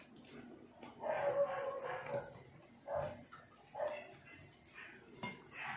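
A dog barking several times, the first call the longest.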